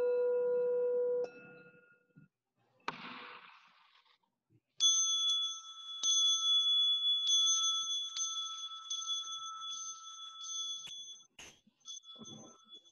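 Buddhist prayer bells ringing. A lower bell's tone sounds and cuts off about a second in; from about five seconds in a higher-pitched bell is struck repeatedly in quick succession, its ring carrying on and fading near the end.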